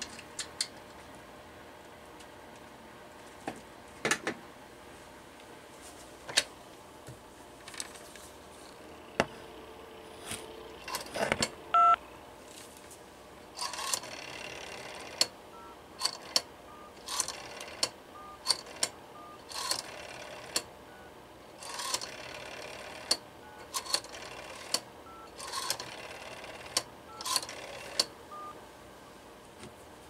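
Rotary dial of a vintage Western Electric desk telephone being wound and released for several digits in a row, each return a short whirr with clicks, as the phone dials out in a working test. Before the dialling, a few sharp knocks and clicks from the handset being lifted and handled.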